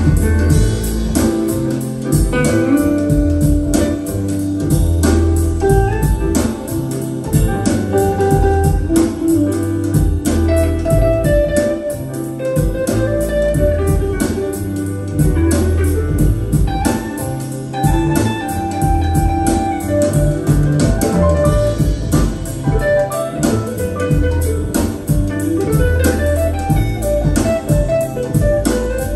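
Recorded music with guitar, a strong bass line and a steady beat, played back through KEF LS50 Meta bookshelf speakers and a subwoofer.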